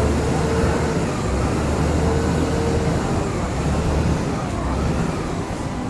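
A motor vehicle's engine running close by: a steady low rumble with a faint whine that comes and goes.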